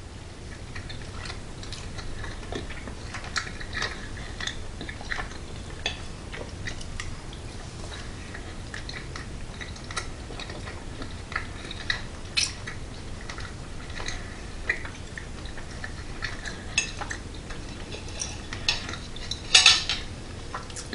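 A metal fork clicking and scraping on a plate in short scattered ticks while food is picked up and eaten, with a louder clatter near the end. Quiet chewing in between.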